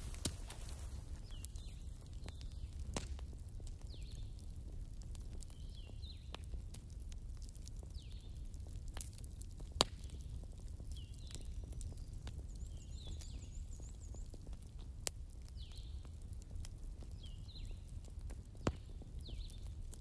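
Wood fire in a fireplace crackling over a low steady rumble, with sharp pops scattered through, the loudest about ten seconds in and another near the end.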